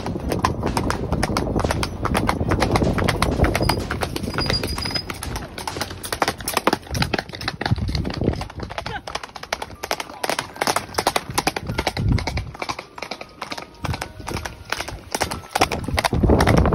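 Horse hooves clip-clopping on a paved road, a quick steady run of sharp strikes with a low rumble beneath.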